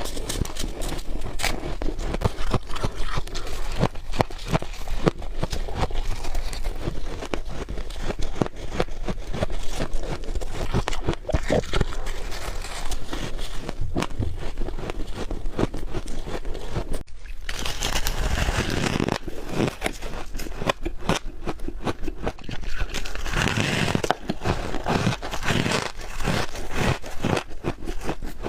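Close-miked biting and chewing of soft, squeaky freezer frost: dense, continuous crunching and crackling, with a short break about seventeen seconds in and louder bites soon after.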